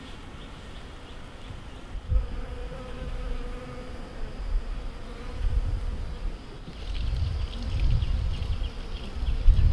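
Honeybee buzzing in a steady hum that starts about two seconds in, over an irregular low rumble.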